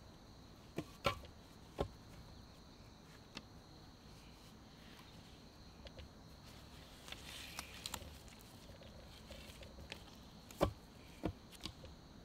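Wooden logs and sticks knocking and clunking against each other as they are handled and set onto a pole frame, with some rustling of bark cord. The knocks are scattered and irregular, the loudest about a second in and again near the end.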